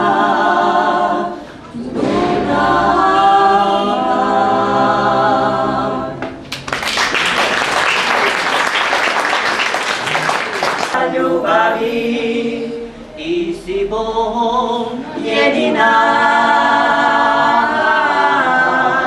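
A small women's vocal group sings a cappella in close harmony and holds the last notes of a song for about six seconds. About four seconds of applause follow. After some brief voices, the group starts the next song in harmony.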